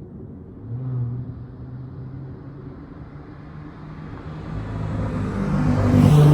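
Dodge Charger SXT's V6 running through a Flowmaster Outlaw exhaust: a low steady rumble with a short blip about a second in, then growing much louder toward the end as the engine revs up.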